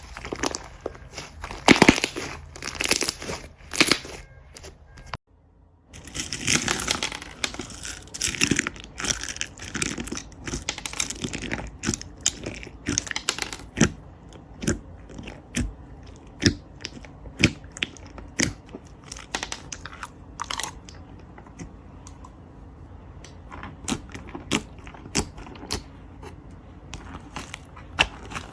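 Slime being squeezed, poked and stretched by hand, giving many sharp little clicks and pops. The sound drops out briefly about five seconds in, then resumes.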